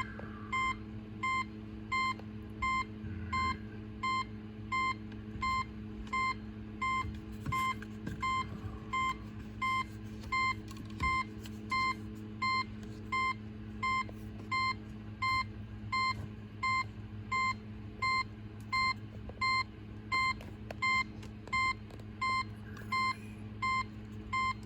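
2004 Pontiac GTO's warning chime beeping over and over at an even pace, about one short beep every 0.8 s, over a steady low hum. It is the security and lock warning that comes with a faulty ignition lock cylinder.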